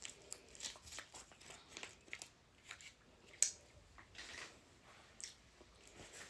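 Faint clicks and wet scrapes of a utensil mixing sauced instant noodles in a bowl, with one sharper click about three and a half seconds in.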